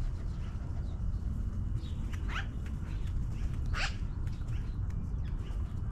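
Magpies calling from a tree: a few short calls, the strongest about four seconds in, over a steady low rumble.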